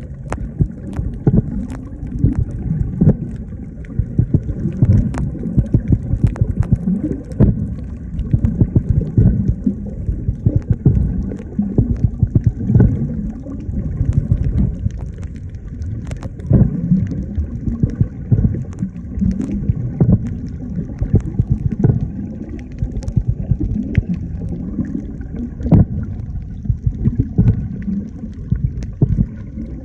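Underwater water noise: a low, muffled rumbling and gurgling that surges unevenly, with scattered short clicks.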